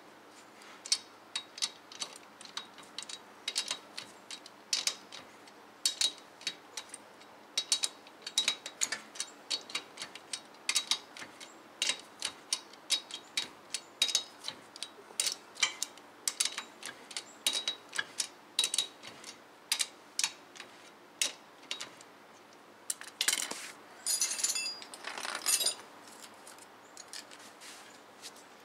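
Hand ratchet wrench clicking in short bursts of clicks as the lug nuts are run down on a truck's front wheel, with a denser clatter near the end.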